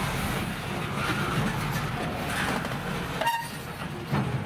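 Freight cars (bulkhead flatcars and a gondola) rolling past on yard track, a steady rumble of steel wheels on rail. About three seconds in comes one short, high squeal.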